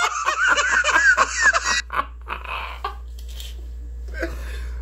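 A man laughing heartily in rapid, rhythmic ha-ha pulses for about two seconds, trailing off into quieter breathy chuckles.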